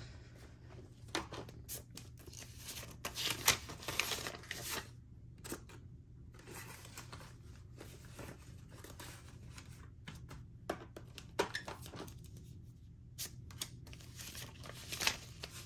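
Paper banknotes rustling and crinkling as stacks of dollar bills are handled and riffled by hand, coming and going irregularly with short quieter gaps.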